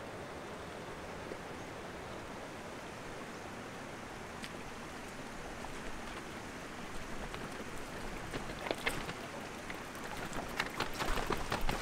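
Steady rush of running water. From about seven seconds in, clicks and clatter of loose rocks grow louder as a loaded bike is pushed across a stony streambed on foot, with footsteps and the tyre crunching over the stones.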